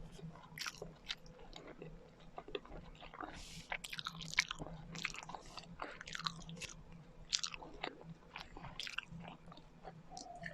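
Close-miked chewing and biting of kakanin, Filipino rice cakes, with irregular short clicky mouth sounds.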